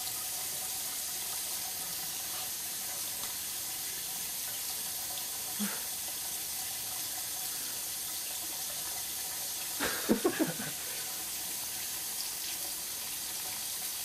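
Kitchen faucet running in a steady stream into the sink as a conure bathes under it. About ten seconds in comes a quick run of four or five loud pulses.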